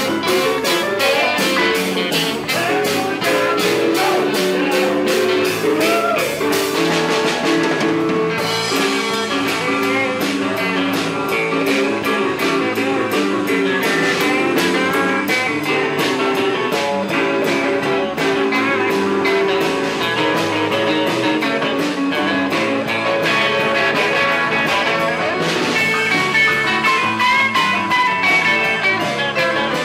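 Live blues-rock band playing an instrumental stretch: electric guitar over a drum kit, with a steady cymbal beat that drops out for about a second partway through.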